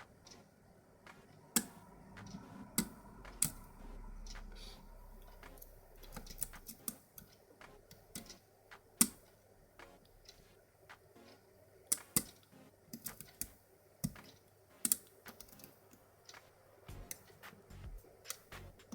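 Small, irregular metallic clicks and ticks of a hook pick and tension wrench working the pins of a pin-tumbler lock, with a few sharper clicks among them.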